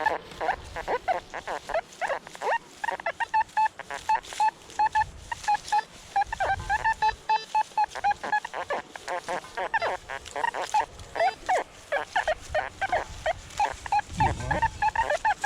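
Nokta Makro metal detector sounding many short beeps, several a second, as it picks up targets in ground full of iron, washers and glass.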